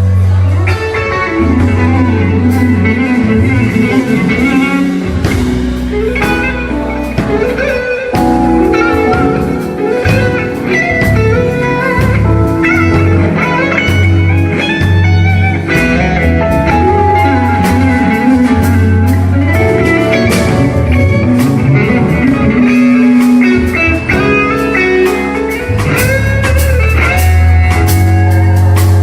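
Live instrumental band music: a guitar playing a melodic line over sustained bass notes and drums.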